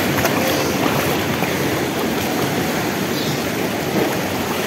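Sea waves washing over and between shoreline rocks in shallow water, a steady surf noise.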